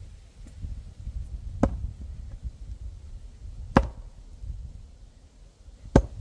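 Axe strikes splitting firewood: three sharp chops about two seconds apart, the second ringing briefly.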